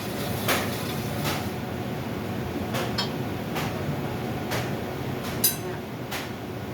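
Irregular sharp metallic knocks and clinks, about seven of them, of tools and metal parts being handled during fitting of an air handling unit blower. One clink about five seconds in rings briefly. A steady background hum runs underneath.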